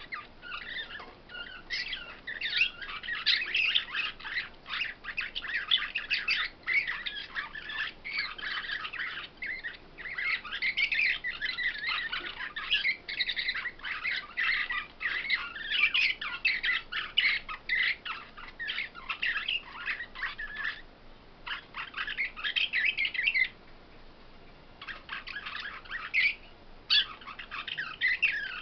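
Caged songbirds singing a fast, dense, high-pitched twittering song, broken by a pause about three-quarters of the way through and a brief one near the end.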